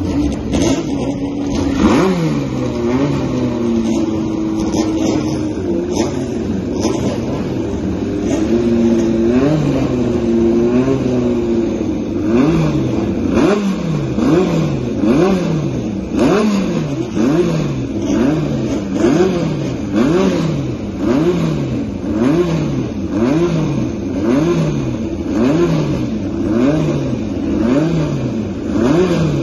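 Chevron B25 Formula 2 racing car's engine running on the spot, with a sharp rev about two seconds in, then uneven throttle for several seconds. From roughly halfway on, the engine is blipped in a steady rhythm about once a second, its pitch rising and falling each time.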